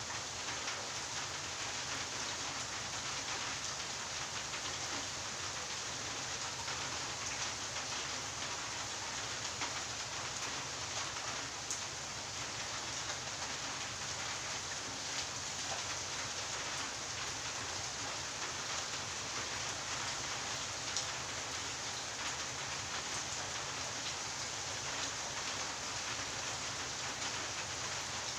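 Steady rain falling on a garden and a wet tiled porch floor: an even hiss that holds without let-up.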